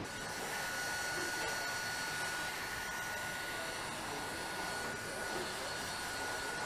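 Hand-held hot-air gun running steadily, heating the edge of a car interior trim panel: an even fan hiss with a steady high whine.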